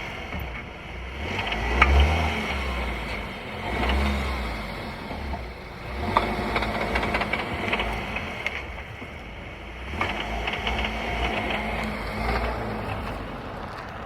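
VW Tiguan drivetrain under repeated load changes: the engine swells and falls about every two seconds, with a sharp knock at about two, six and ten seconds in. It is the rattle on load change that the owner puts down to the drivetrain, gearbox or dual-mass flywheel without knowing which.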